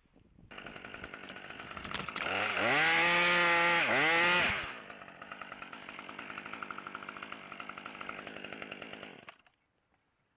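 Husqvarna T540 XP top-handle two-stroke chainsaw: it starts up, is throttled up to high revs for about two seconds with a brief dip, drops back to idle, then cuts off suddenly near the end.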